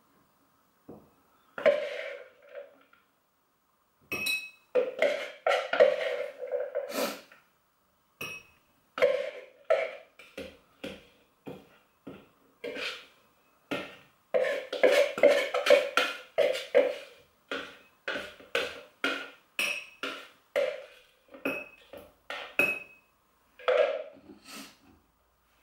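Metal spoon scraping a thick, wet paste out of a plastic measuring jug and tapping it into a glass jar. The scrapes and clinks come in a long irregular run, and a few of them leave a brief glassy ring.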